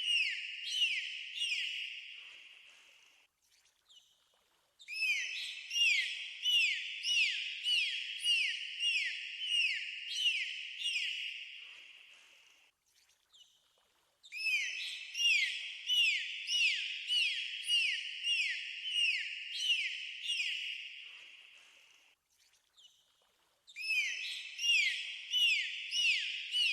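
Dolphin whistles: a fast series of short whistles, each falling in pitch, about two a second. They come in bouts that fade away, with brief pauses about three, thirteen and twenty-two seconds in.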